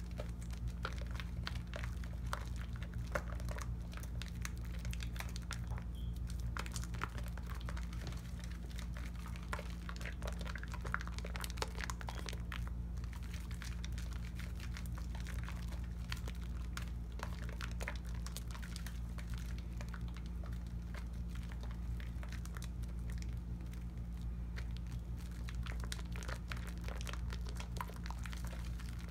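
Lathered hands rubbing a bar of Tone cocoa butter soap: wet squishing of the foam with dense, fine crackling throughout, over a steady low hum.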